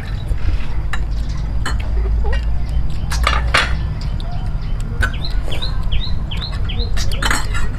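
Spoons clinking against ceramic bowls and plates, with a few sharper clinks a little past three seconds in. A bird calls a quick run of short, high chirps about five seconds in.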